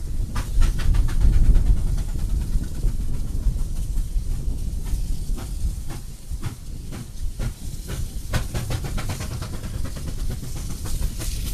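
SY-class 2-8-2 steam locomotive working hard with a coal train: a steady low rumble and hiss of steam, with quick runs of sharp exhaust beats about a second in and again near the end.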